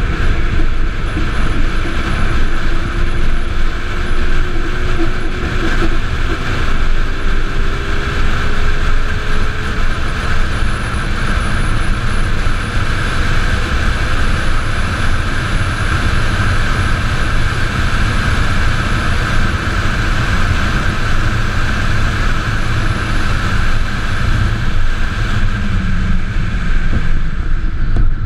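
Steady wind and road noise heard from on board a solar race car driving at speed. A faint whine rises slowly in pitch over the first ten seconds or so.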